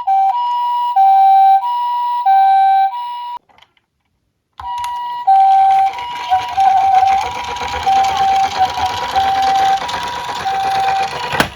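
Toy emergency vehicle's electronic two-tone siren, switching between a high and a low note about every two-thirds of a second. It cuts out for about a second after three and a half seconds, then resumes with a rushing noise underneath and a sharp click near the end.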